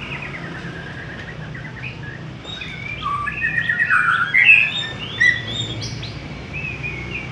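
Murai, a Copsychus songbird, singing a varied run of clear whistled notes and glides, busiest and loudest in the middle, over a faint low hum.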